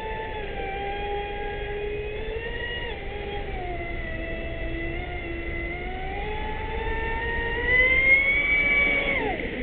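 Brushless electric motor of a Traxxas Spartan RC boat (Leopard 4082 2200Kv on a 6S LiPo) whining at speed, its pitch sagging and rising with throttle and the boat's turns. It climbs to its highest and loudest about eight seconds in, then drops sharply near the end as the throttle comes off.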